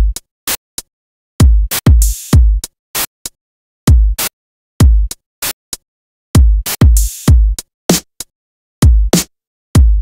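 Programmed drum-machine loop: kick-drum thumps and short hits, with bursts of white noise opened by a noise gate on the snare hits. The noise comes through as short hiss bursts, and twice, about five seconds apart, as a longer wash of hiss.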